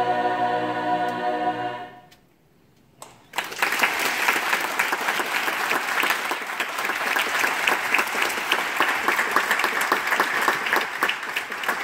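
A large mixed choir holds a final sustained chord and releases it about two seconds in. After a second of near silence the audience starts applauding, and the clapping continues steadily.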